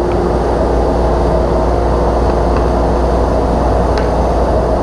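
Shop vacuum running steadily, a rushing of air with a steady hum, pulling dust out of the table saw's cabinet during cleaning.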